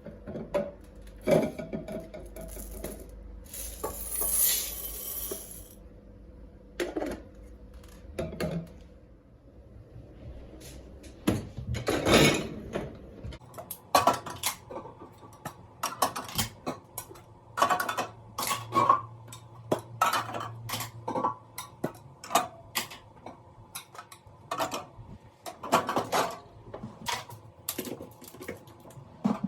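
Glass jars and kitchen containers clinking and knocking as they are picked up and set down, in many short irregular hits. There is a short hiss about four seconds in.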